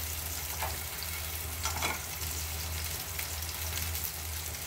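Food sizzling in a hot frying pan, with a couple of brief scrapes of a utensil stirring it, over a steady low hum.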